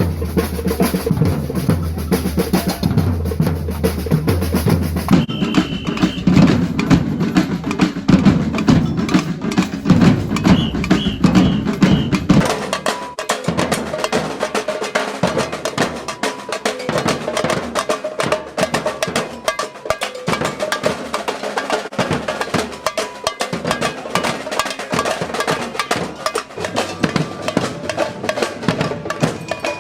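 A group drumming a dense, steady beat on drums. About twelve seconds in the sound switches abruptly to a thinner recording with much less bass, and the drumming carries on.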